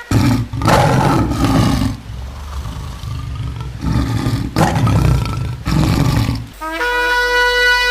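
Several loud, rough, noisy roaring blasts with no clear pitch. About a second before the end, a shofar (ram's horn) sounds a clear, steady note.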